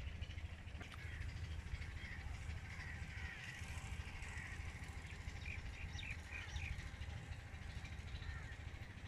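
Outdoor ambience of birds calling, with a run of four short calls about two-thirds of the way through, over a steady low rumble.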